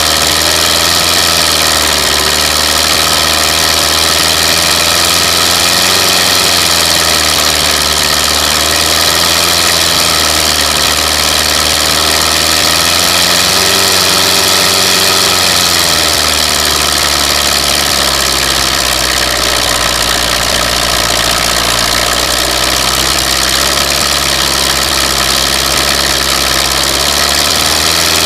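Belarus 510 tractor's diesel engine running loud and steady as it hauls a loaded sugarcane trailer, its pitch rising and falling a little a few times as the load and revs change.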